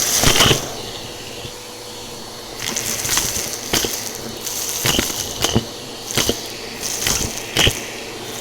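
Bissell PowerForce Helix upright vacuum running with a steady motor hum while its brushroll crunches through a pile of dry debris, with sharp crackles and rattles of bits being sucked up, about one a second in the second half.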